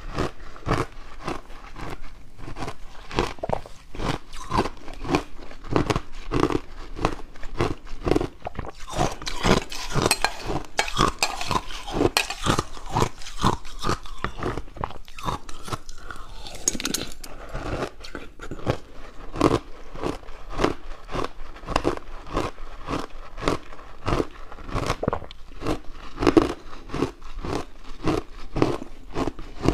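Purple ice being bitten and chewed close to the microphone: a continuous run of crisp crunches, several a second.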